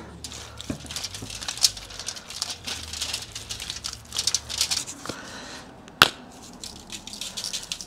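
Hands slathering mustard binder over raw briskets on a foil-lined tray, a busy wet rubbing and rustling. About six seconds in comes a sharp click, then a spice shaker rattling quickly as dry rub is shaken onto the meat.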